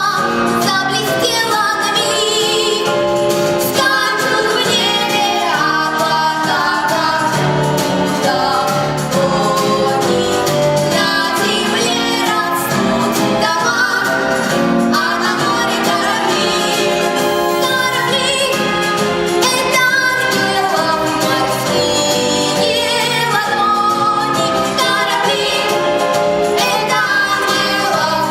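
A song with a woman singing over instrumental accompaniment, with choir-like backing voices.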